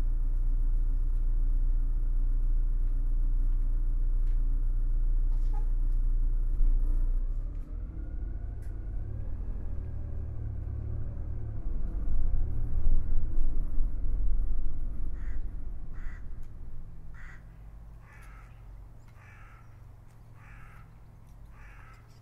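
A large vehicle engine idling steadily, as a bus does waiting at a stop; about seven seconds in this gives way to a deeper rumble that swells and then fades away. Over the last several seconds a bird calls repeatedly, about once a second.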